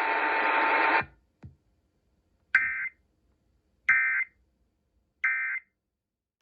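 Radio static cuts off about a second in, followed by a faint click. Then come three short, identical bursts of digital screech, each about a third of a second long and evenly spaced. These are the Emergency Alert System end-of-message data bursts, the signal that the alert broadcast is over.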